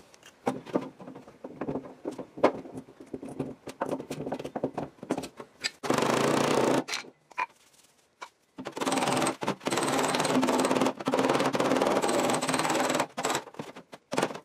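Hammer tapping on a car fender's sheet metal from behind, working out a low spot. There are scattered sharp knocks for the first several seconds, then fast, continuous tapping: about a second of it around six seconds in, and a longer run of about four seconds near the end.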